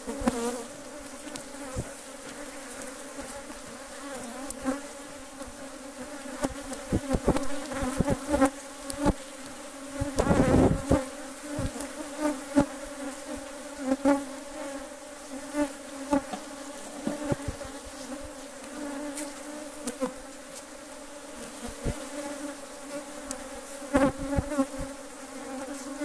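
A disturbed honeybee colony around an opened hive, a steady buzzing drone with bees passing close, the sound of a defensive colony that is stinging. Scattered short knocks run through it, with a louder rush of sound about ten seconds in.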